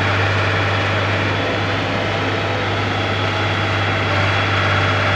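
Concrete mixer truck's engine running steadily, a constant low hum under an even mechanical noise.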